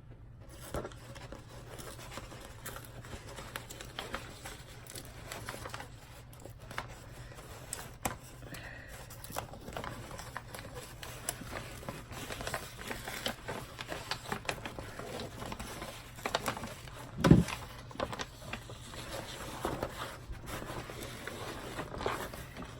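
A diamond painting canvas being unrolled and handled: rustling and crinkling with scattered small clicks and scrapes, and one dull thump about three quarters of the way through.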